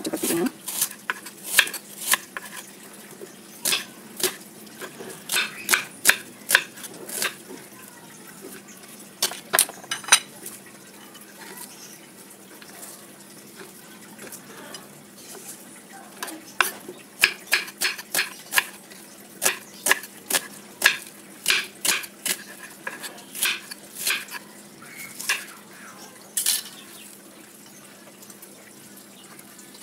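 Kitchen knife slicing an onion on a wooden cutting board: irregular runs of sharp knocks as the blade hits the board, with a pause in the middle and stopping near the end.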